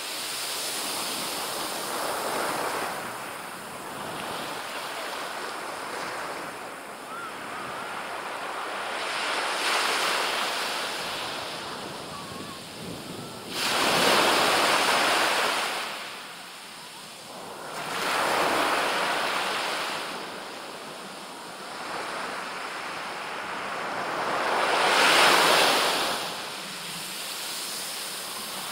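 Small surf breaking and washing up a sandy beach, swelling and fading every few seconds. The loudest breaks come about 14 and 25 seconds in.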